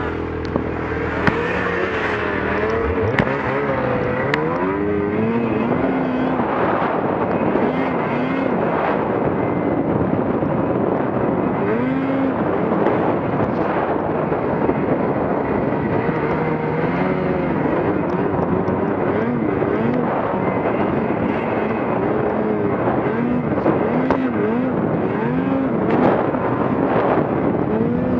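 Snowmobile engine moving off from a steady idle about a second in, then revving up and down over and over as the sled is throttled through deep powder snow. A rushing hiss of wind and snow runs underneath.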